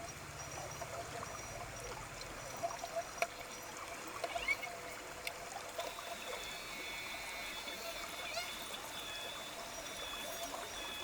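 A stream trickling steadily, with faint high bird calls over it and a few soft ticks about three to four and a half seconds in.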